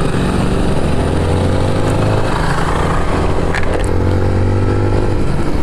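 Motorcycle engine running while riding, its pitch rising and falling gently with the throttle, over steady road and wind noise.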